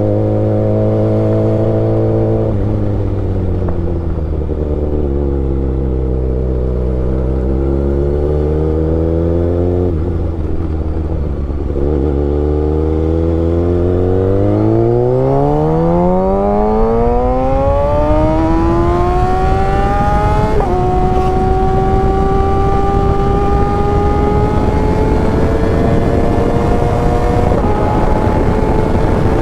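Kawasaki Ninja ZX-6R inline-four engine running under way on the road. The note drops suddenly a couple of seconds in and wavers at low revs, then climbs steadily through the revs. Abrupt steps in pitch come about two-thirds of the way in and again near the end, at gear changes.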